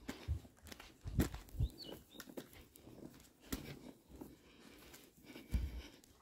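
Footsteps and scuffs of someone walking on a paved road, with irregular low thumps, and one short bird chirp about a second and a half in.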